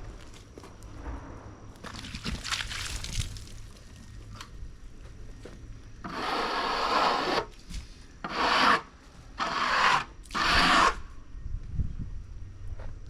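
A series of rough rubbing scrapes, about five strokes of half a second to a second and a half each, the loudest and closest together in the second half, over a faint low steady hum.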